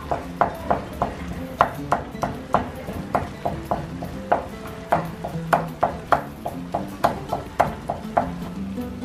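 Wooden spoon stirring a thick cooked vegetable mixture in a nonstick frying pan, knocking against the pan in irregular sharp taps, several a second.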